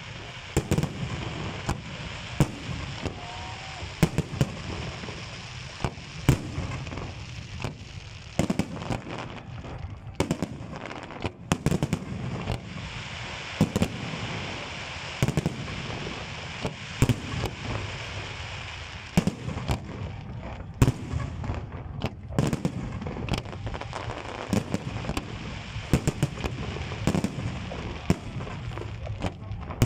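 Festive fireworks salute: shells bursting in a rapid, irregular series of sharp bangs over a steady crackling haze.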